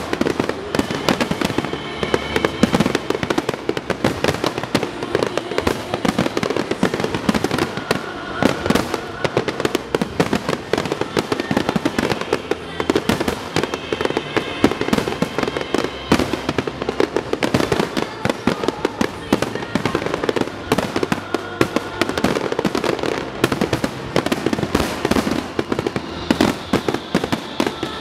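Rapid-fire aerial fireworks barrage: many shells bursting in quick succession, a near-continuous run of bangs and crackling.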